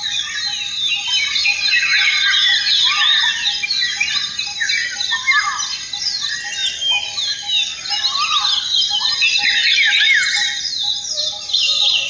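Dense chorus of many birds chirping and twittering over one another, with a short note repeating steadily underneath.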